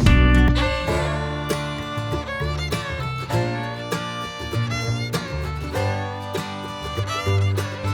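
Background music: upbeat bluegrass-style country tune with plucked acoustic guitar and fiddle.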